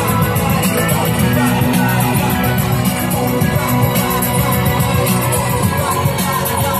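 Background music: a loud, steady guitar-led rock track.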